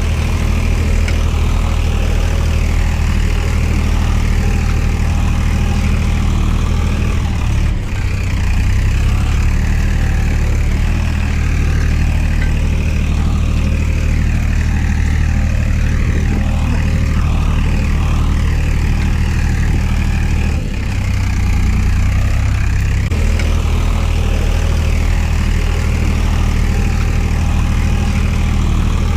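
Heavy engine running steadily with a low hum, its note shifting about 8 seconds in and again around 21 to 23 seconds.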